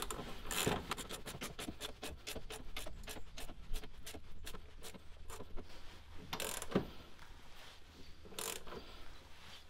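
Small hand ratchet with a 21 mm socket clicking quickly, several clicks a second, as it turns the nut of a bush removal sleeve tool to pull the old rear axle bush out. After about six seconds the clicking stops, and a few louder scrapes follow.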